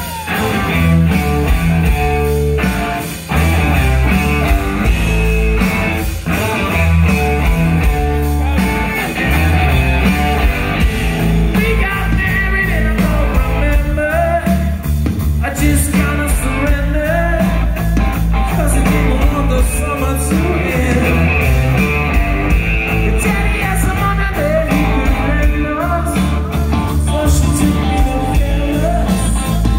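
Rock band playing live: electric guitar, bass guitar and drums driving a steady beat, with the lead singer's vocal over them.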